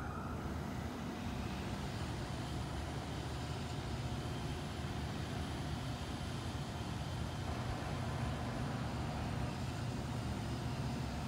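Diesel freight locomotive idling with a steady low rumble.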